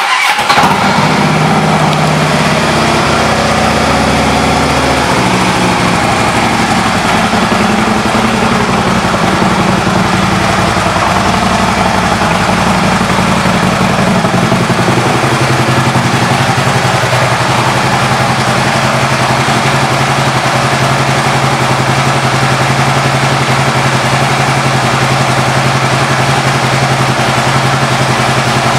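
Harley-Davidson CVO Ultra Classic's Twin Cam 110 V-twin starting and idling through its aftermarket exhaust. It runs a little unevenly for the first five seconds or so, then settles into a steady idle.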